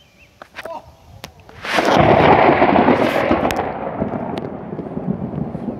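A close thunderclap: a sudden loud crack a little under two seconds in, followed by heavy rumbling that slowly fades.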